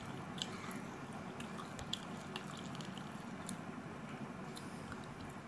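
Fingers mixing rice with mutton gravy on a plate: soft wet squishing with small scattered clicks, over a steady low hum.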